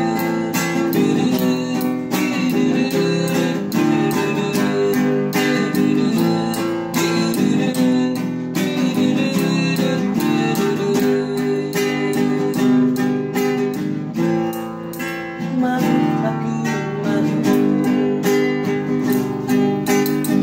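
Acoustic guitar strummed steadily in an instrumental break of a busker's song, with no singing.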